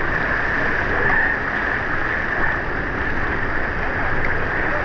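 Rushing whitewater of a river rapid: a steady, dense rush of water.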